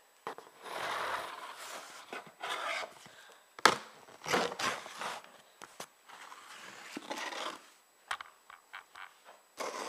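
Cardboard shipping box being opened by hand: irregular bursts of rustling, scraping and crinkling, with sharp clicks and one loud snap a little over a third of the way in.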